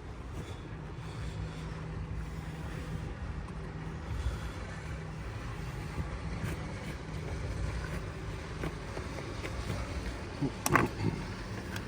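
Steady low rumble with a faint hum, and a short cluster of sharp knocks near the end, from hand-tool work prying at an old boat hatch.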